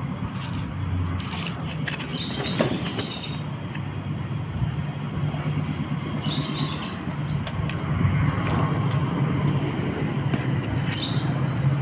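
A steady low mechanical hum, like an engine running, with three short bursts of rustling scrapes.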